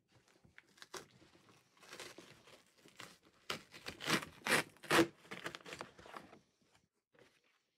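Cardboard box flaps being handled and crumpled brown packing paper rustled and crinkled as hands dig through it inside the box, a run of rustles loudest in the middle and dying away about six and a half seconds in.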